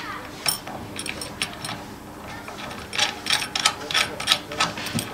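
Small metal clicks and scrapes of a bolt being turned by hand into an angle grinder's gearbox housing, fixing a welded steel bracket in place. The clicks come sparsely at first, then in a quick run of them over the last two seconds.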